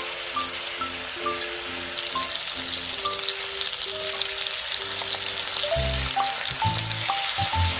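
Food sizzling steadily in a hot frying pan, under background music with a plucked melody and bass line.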